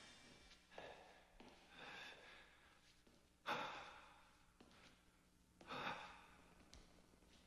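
A person's faint breathing, about five breaths a second or two apart, the loudest starting sharply about three and a half seconds in.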